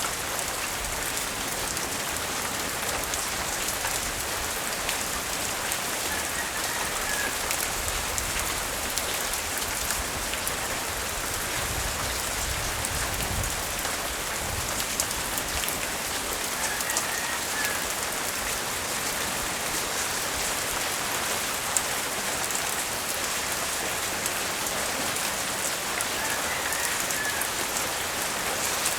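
Steady light rain falling on surfaces during a tropical storm, with scattered drip clicks. A low rumble swells briefly in the middle, and a faint short high chirp comes three times, about ten seconds apart.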